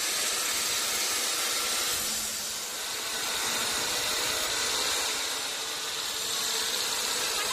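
Log band saw ripping lengthwise through a teak log, a steady even noise of the blade cutting, with a low hum joining under it about two seconds in.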